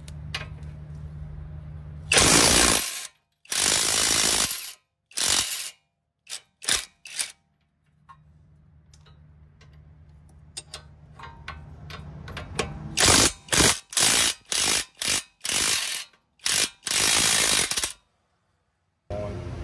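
Cordless 1/2-inch impact wrench hammering in about a dozen short bursts, each half a second to a second long, as it spins a strut nut off in reverse. A low steady hum sits under the quiet stretches between bursts.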